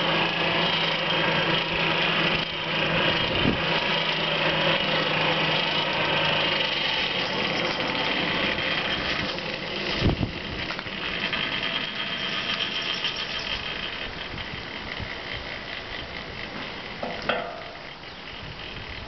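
The air blower of a homemade coal forge runs steadily, forcing air into the burning coal with a rushing sound and a low hum. The hum drops out about a third of the way in and the air noise slowly fades. There is a single knock about halfway, and a short metallic ring near the end, as the glowing round bar is handled.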